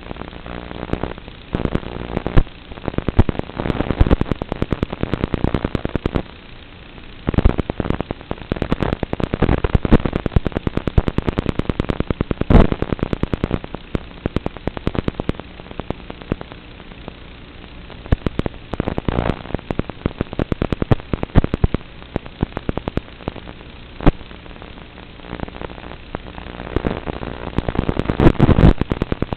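Static hiss and crackling from an FPV goggle video receiver's audio channel. It comes in irregular bursts of sharp pops and clicks separated by quieter stretches of steady hiss.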